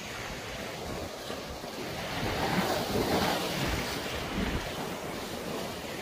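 Sea surf washing in among the concrete tetrapods of a breakwater, swelling louder with one wave about two to three seconds in, with wind buffeting the microphone.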